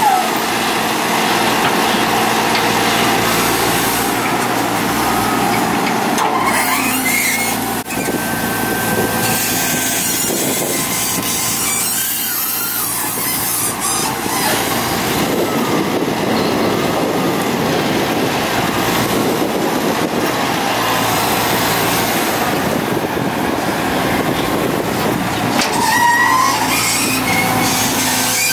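Kobelco hydraulic excavator's diesel engine running under load while it works its boom and bucket to load soil into a dump truck, with a couple of brief squeals.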